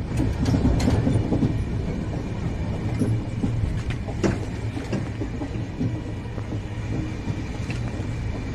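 Train rolling along a station track with a steady low rumble, and a few sharp, irregular clacks of wheels over rail joints.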